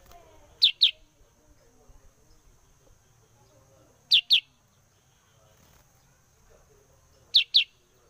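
Black-headed bulbul (kutilang sutra) calling three times, each call a pair of quick sharp notes falling in pitch, about three and a half seconds apart.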